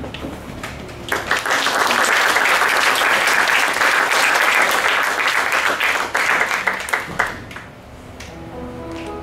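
Audience applause, starting about a second in and dying away after about six seconds; soft music begins near the end.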